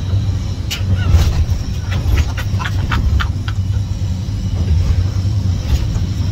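Fishing catamaran's engine drone heard from inside the wheelhouse as the boat runs through choppy sea, a steady low rumble. About two to three and a half seconds in, a quick run of short, sharp sounds cuts through it.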